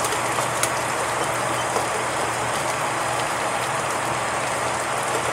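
Water at a full rolling boil bubbling steadily in a saucepan, an even seething hiss with a faint tick or two near the start.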